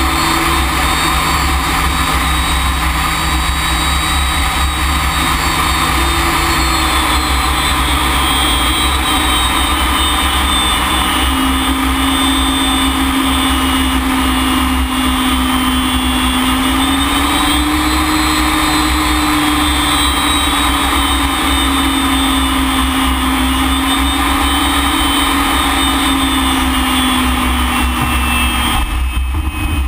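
BAC Strikemaster's Rolls-Royce Viper turbojet running steadily, heard from inside the cockpit: a loud rushing noise with whining tones that drift slowly up and down in pitch. About a second before the end the higher hiss drops away abruptly.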